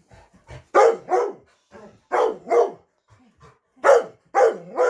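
Pet dog barking excitedly at her owner's return: six short barks in three quick pairs, each dropping in pitch, the last trailing off low.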